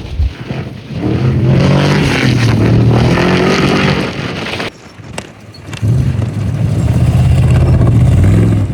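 Off-road race vehicle's engine running hard at high revs, easing off for about a second halfway through with a sharp click, then running hard again.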